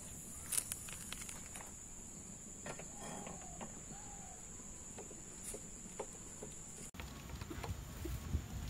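Rural yard ambience with a steady high insect drone and a few light clicks and taps from the cloth working the pan. A hen gives short clucks about three to four seconds in.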